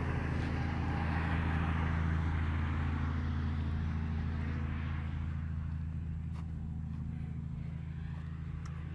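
A motor vehicle's engine running with a steady low hum under a rushing noise. The sound comes in suddenly just before and swells over the first couple of seconds, then eases slightly and holds steady.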